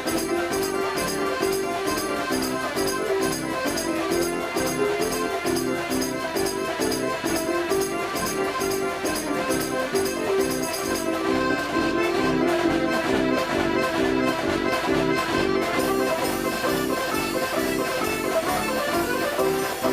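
A 105-key Decap fairground dance organ playing a tune, with accordion and brass-like voices over a steady beat from its percussion.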